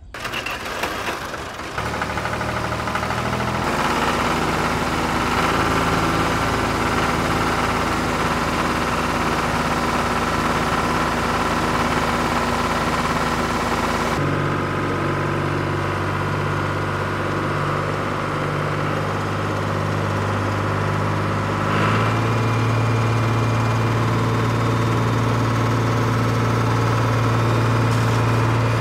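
Steady engine sound like a diesel tractor running under light load. Its pitch and pattern change abruptly several times, about 2, 4, 14 and 22 seconds in.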